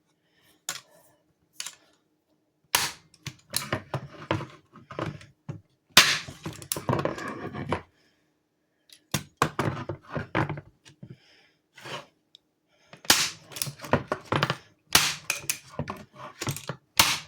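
Hart heavy-duty staple gun fired over and over: a string of sharp mechanical snaps, loosely grouped in bursts. The staples are not feeding properly, so most strokes drive no staple.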